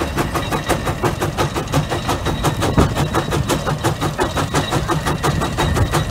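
Case 150 steam traction engine working hard under load, pulling a large gang plow. Its exhaust beats come in a rapid, even rhythm.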